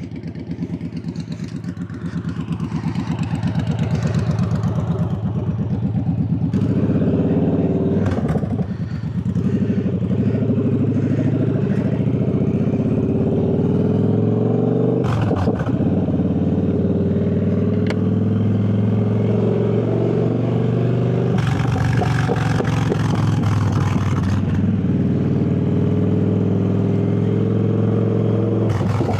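Triumph Bonneville Bobber's 1200 cc parallel-twin engine pulling hard and accelerating, its note climbing in pitch through the gears, with brief breaks for gear changes about 8 and 15 seconds in.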